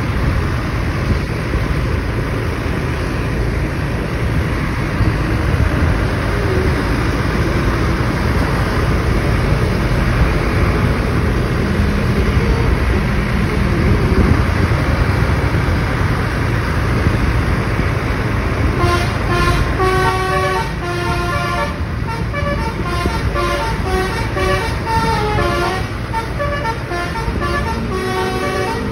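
Steady wind and engine rumble while following close behind a tour bus. About 19 seconds in, the bus's basuri, a multi-tone melodic air horn, starts playing a quick tune of short, stepping notes.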